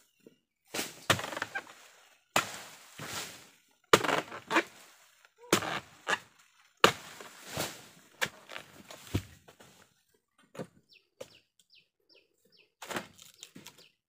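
Long-handled pole sickle (egrek) hacking and dragging at a thick oil palm fruit-bunch stalk, with palm fronds rustling: about seven sharp, rasping strokes over the first nine seconds. After that come a few faint clicks while a bird chirps.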